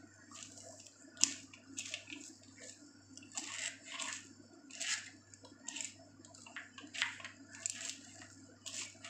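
A hand mixing shredded raw cabbage with crushed coconut in a steel bowl: irregular crunchy rustles about once a second as the cabbage is squeezed and turned, with one sharp tap about a second in.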